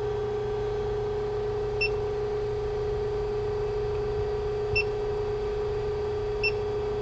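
Steady hum of the Hoston 88-ton hydraulic press brake running idle, with three short high beeps from its touchscreen control as keys are pressed, about two, five and six and a half seconds in.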